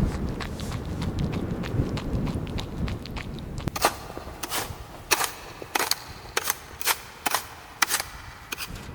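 A low rumbling noise, then from about halfway through a run of about ten sharp cracks, roughly two a second.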